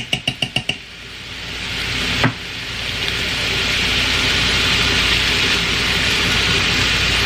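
Ground meat and vegetables sizzling in the metal inner pot of an electric pressure cooker on its sauté setting. At the start a quick run of about six metal taps as a measuring spoon is knocked against the pot to shake off tomato paste, and one more tap about two seconds in; the sizzle dips after the taps and builds back to a steady hiss.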